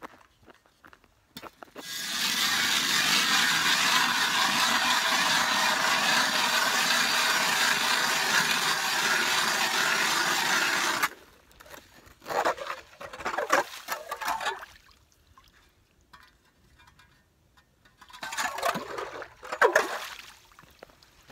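Hand-cranked ice auger boring through lake ice: a steady scraping for about nine seconds, then shorter scrapes. Near the end water sloshes up the hole as the blades break through the ice.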